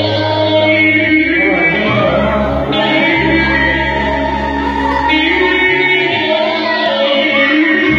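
Loud live music with singing: a wavering vocal melody over sustained low bass notes that step to a new pitch every second or two.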